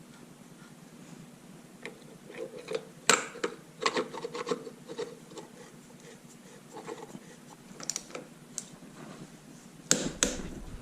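Hand work on motorcycle engine parts: scattered metal clicks, clinks and short scraping rubs, busiest in the first half and again near the end.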